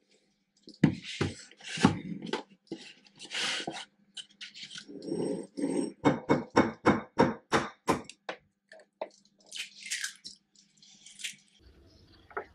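Kitchen handling noises: knocks and clatter as a plastic milk bottle and an egg carton are set down and handled on a wooden counter, with short rustles. Midway comes a quick run of taps, about four a second for two seconds.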